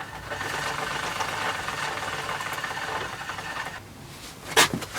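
Bicycle chain and drivetrain rattling steadily as the chain is turned over the sprockets, for about four seconds. It then quietens, and a sharp knock follows near the end.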